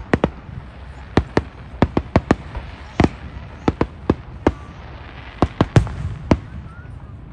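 Aerial fireworks shells bursting overhead: about fifteen sharp bangs at an irregular pace, some coming two or three in quick succession.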